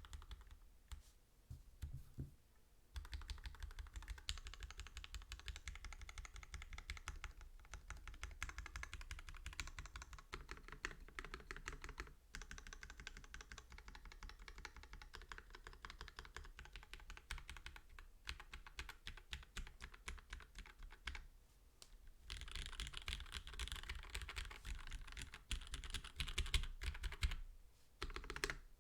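Custom mechanical keyboard with lubed and filmed Gateron Black Ink v2 linear switches on a carbon fibre plate under GMK keycaps, being typed on. A few scattered keystrokes at first, then fast continuous typing with a brief lull about three-quarters of the way through, stopping just before the end.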